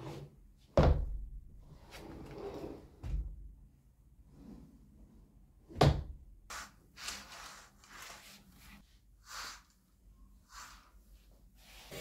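Armchair being moved about and set down on the floor: two loud thuds, about a second in and near the middle, a softer one in between, with scraping and rustling around them. Short rubbing and swishing sounds follow in the second half.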